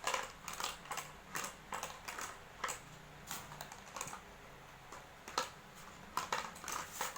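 Packaging being handled during an unboxing: irregular clicks and short rustles, several a second, with a louder click about five and a half seconds in.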